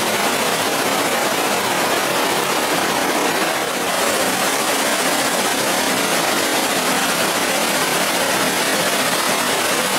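Whitewater of the Breitach mountain torrent rushing over rocks in a narrow gorge: a steady, loud rush of water, dipping briefly a few seconds in.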